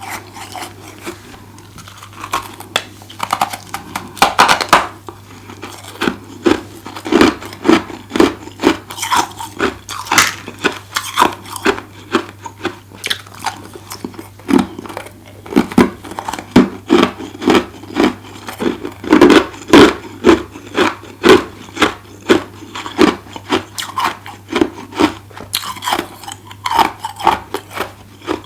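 Close-miked chewing of a mouthful of freezer frost ice, crunching in steady chomps about two a second.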